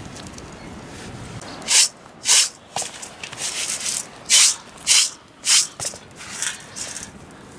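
Short, sharp scraping strokes of dried corn kernels against a metal pan, irregular, about one or two a second, starting about two seconds in.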